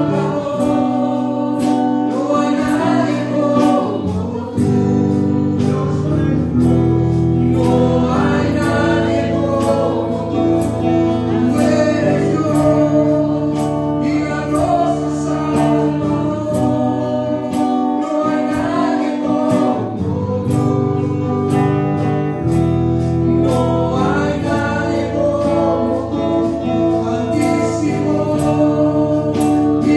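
Spanish-language Christian worship song: long held keyboard chords with singing voices over them.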